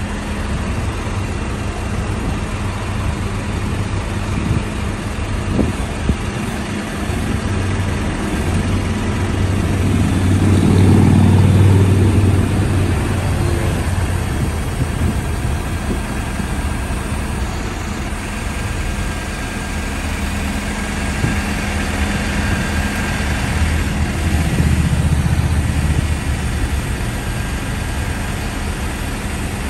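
Tow truck's engine running steadily at idle with a low hum, swelling louder twice, around ten and twenty-four seconds in.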